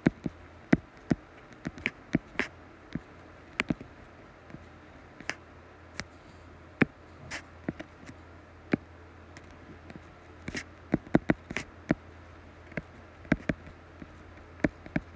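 Stylus tip clicking and tapping on an iPad's glass screen during handwriting: sharp, irregular ticks, sometimes several in quick clusters, over a faint low hum.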